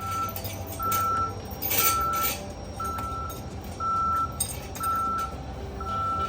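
A vehicle's backup alarm beeping a single steady tone about once a second over a low engine hum, the sign of the vehicle reversing. A short noisy burst comes about two seconds in.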